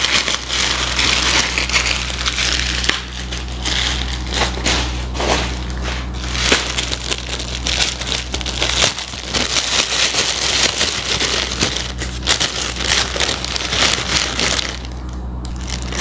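A clear plastic bag crinkling and crackling as it is handled, with many sharp crackles in quick succession, over a faint steady low hum.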